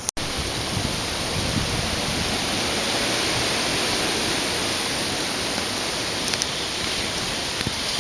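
Strong wind blowing across the camera microphone: a steady, loud rushing noise with no tone or rhythm.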